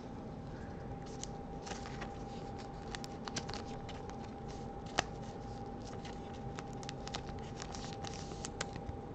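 Trading cards being handled and slid against one another in the hands, with scattered light clicks and rustles and one sharper tap about five seconds in. A faint steady hum runs underneath.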